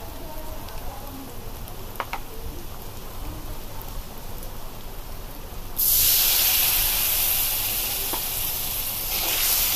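Onion, green chilli and ground spices frying in oil in a karahi: faint at first with one light tap about two seconds in, then a sudden loud sizzle a little past halfway that keeps going and swells again near the end.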